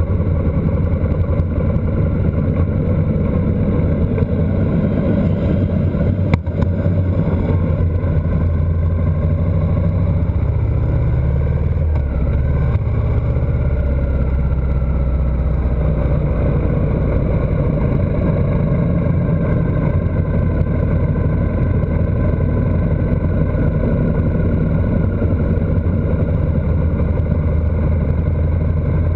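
A motorcycle riding along at a steady cruising speed: engine running evenly under a heavy rush of wind noise. A single sharp click about six seconds in.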